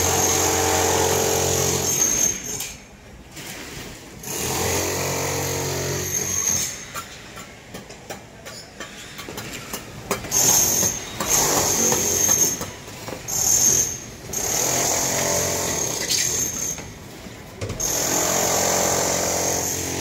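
Machinery running during a concrete roof-slab pour: a motor with a low hum and a steady high whine, starting and stopping in bursts of two to three seconds with short quieter gaps.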